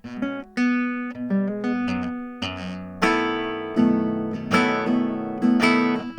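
Acoustic guitar heard through a piezo pickup and preamp, with no corrective filter: chords plucked and strummed, each sharp attack ringing out and decaying. This is the raw pickup sound, before any EQ to match a microphone.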